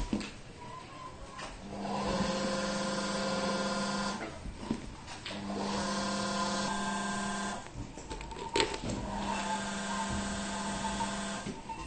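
Production-line machine motor on a cosmetic tube filling line, humming at a steady pitch in three runs of about two seconds each, with clicks and a sharp knock in the gaps between runs.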